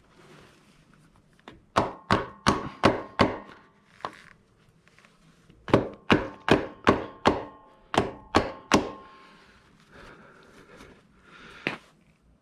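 Sharp metal-on-metal taps with a short ring, about two or three a second in two runs of five and eight: the motorcycle foot peg's pivot pin being tapped into its mount against the peg's spring preload.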